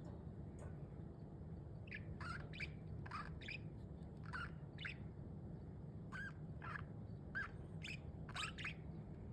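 Pet budgerigars chirping: a quick run of short, sharp calls that starts about two seconds in, over a steady low hum.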